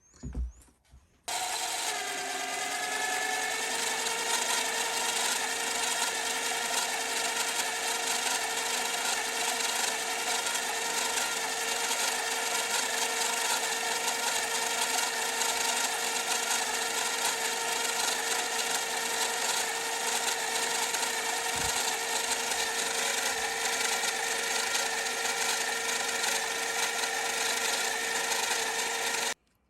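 Mini lathe running under cut as the tool turns a bar down to diameter: a steady motor and gear whine over a rasping cutting noise. It starts abruptly about a second in, sags slightly in pitch just after starting, then holds steady until it stops abruptly near the end.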